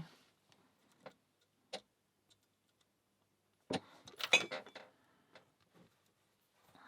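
Small metallic clicks and rattles of a lockpick and tension tool working in an Abus 65/15 padlock: a couple of single clicks, then a quick run of clicks a little past the middle.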